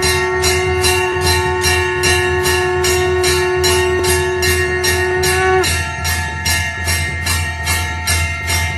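Temple bells (ghanta) struck rapidly and without pause for an aarti, about three strokes a second, their ringing overlapping into a continuous clang. The lowest ringing tone stops about five and a half seconds in, and the rest keep going.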